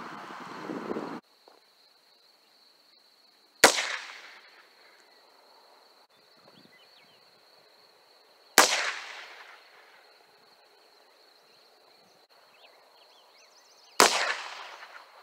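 Three single gunshots from a Heritage Rough Rider .22 rimfire single-action revolver, about five seconds apart, each with a short echoing tail. In order they are a .22 Short, a .22 Long and a .22 Long Rifle round.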